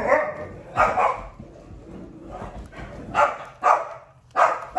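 Dogs barking in short, separate barks: one at the start, one about a second in, then a pause before more barks about three seconds in and near the end.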